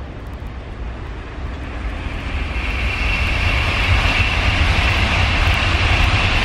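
Tokaido Shinkansen N700-series bullet train passing at high speed: a rush of noise that swells over the first two or three seconds and then holds steady, with a deep rumble underneath and a high hiss riding on top.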